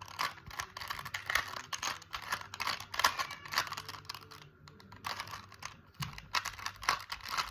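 Plastic Rubik's Cube being turned by hand: a quick, irregular clatter of clicks as the layers twist, easing off briefly about halfway through.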